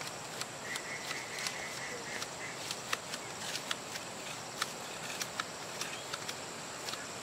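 Steady high-pitched insect drone with frequent irregular sharp clicks and snaps over it.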